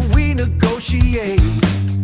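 Modern funk/soul dance music: a bass line and regular drum hits under a lead melody that slides up and down in pitch.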